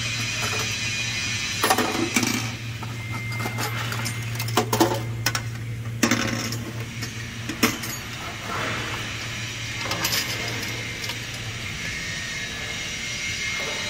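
Scattered metallic clinks and knocks inside a steel vessel over a low steady machinery hum, which fades out about two-thirds of the way through.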